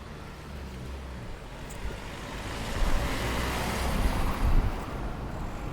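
Wind buffeting a microphone, a fluttering low rumble, with a rushing noise that swells about halfway through and eases off near the end.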